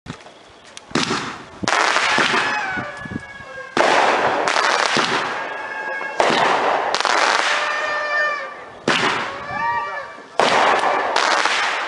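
A 200 gram, 20-shot consumer firework cake firing a string of shots, about seven in all, one every one to two and a half seconds. Each shot is a sudden bang followed by a second or two of crackling.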